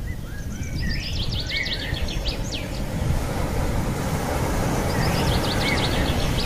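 Outdoor ambience: a steady low rushing noise with a bird singing a quick phrase of high chirping notes, heard twice, about four seconds apart.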